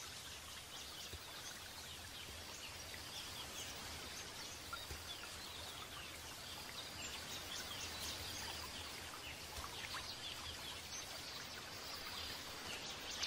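Forest ambience: many short, high bird chirps and calls scattered over a steady background hiss.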